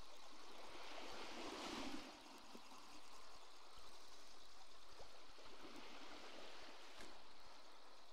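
Faint sea water lapping and washing at the shoreline, with one wave swelling and falling away about a second and a half in, and a couple of light clicks later on.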